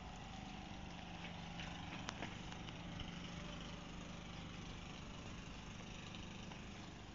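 Diesel locomotive engine idling steadily, a low, even hum with a faint click about two seconds in.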